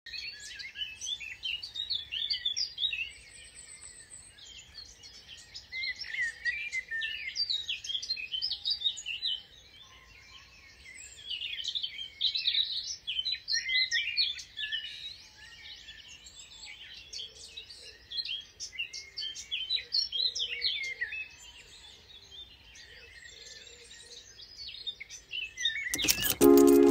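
Birdsong: many small birds chirping and trilling at once, in swells of a few seconds with quieter gaps between. Music starts suddenly near the end.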